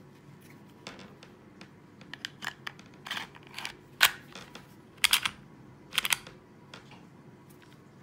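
Glock 26 pistol being reassembled, its slide and recoil spring going back onto the polymer frame: light metal-and-plastic clicks and sliding, then three sharp clicks about a second apart.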